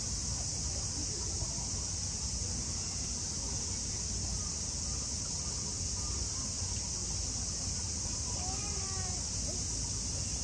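Steady, even high-pitched drone of cicadas in a summer chorus, over a low background rumble.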